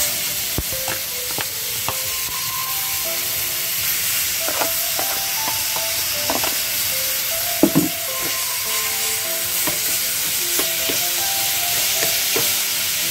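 Seasoned ground pork sizzling in a hot frying pan as a spatula stirs and scrapes it, with a steady hiss and occasional knocks of the spatula on the pan; the loudest is a double knock a little past halfway.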